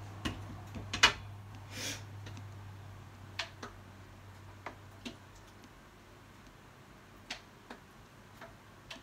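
Stirring spoon knocking and clicking irregularly against a pot of tomato sauce as it is mixed. The loudest knock comes about a second in, then sparser light ticks.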